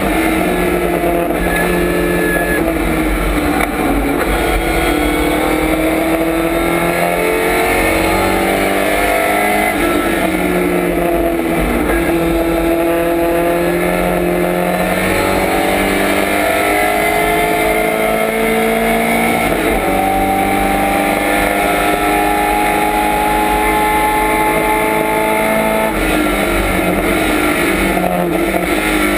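Lotus Cortina Mk1 race car's four-cylinder twin-cam engine under hard acceleration, heard from inside the stripped cockpit. The engine pitch climbs, drops back at each gear change and climbs again several times through the stretch, with lifts and downshifts between the runs.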